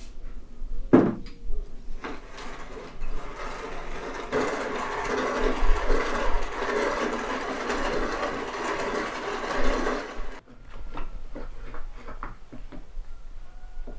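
Hand-cranked wooden box mill grinding whole spice seeds: a steady crunching grind that grows louder a few seconds in and stops suddenly about ten seconds in. A few light wooden clicks follow as the mill's small drawer is pulled out.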